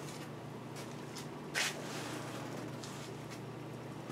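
Homemade servo-driven CNC router working as a pen plotter, running on a KSI Labs Centipede servo system with Adept linear slides: a steady low hum with short scratchy sweeps as the axes move the pen over the paper, the loudest about one and a half seconds in.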